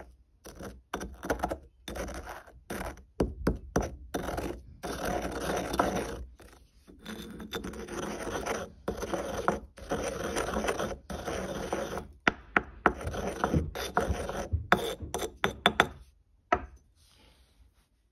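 Dried cochineal being ground in a stone mortar and pestle: irregular gritty scraping and crunching strokes with short pauses. Sharper knocks of the pestle against the stone come near the end, then the grinding stops.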